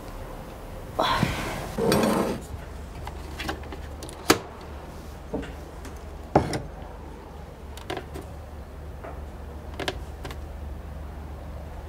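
Bedclothes rustling twice, about one and two seconds in, then scattered single clicks and knocks of household handling over a faint low room hum. Near the end comes the click of an electric kettle's switch being pressed.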